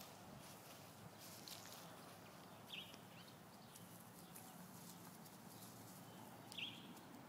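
Faint scuffling and rustling of two small dogs playing in dry grass, with two brief high squeaks, one a little before the middle and one near the end.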